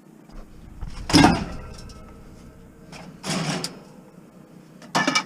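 Scrap metal clanking as it is handled: a loud metallic clank about a second in that rings briefly, a second clank a couple of seconds later, and a quick rattle of knocks near the end.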